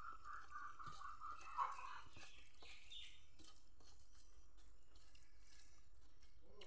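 Fingers mixing and squeezing rice with dal on a metal plate: faint, soft squishing with small clicks. For about the first two seconds a high, wavering call sounds in the background, with a shorter, higher call shortly after.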